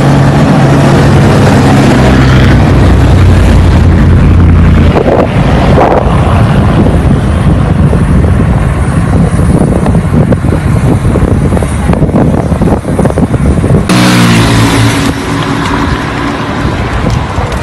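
Road-ride noise: heavy wind rushing over the microphone with passing road traffic. A motor vehicle's engine hums steadily in the first few seconds, and another passes near the end, its engine note falling in pitch.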